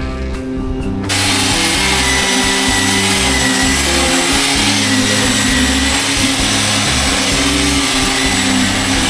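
Background music with a steady beat, joined about a second in by a loud, steady machine noise that runs on unchanged.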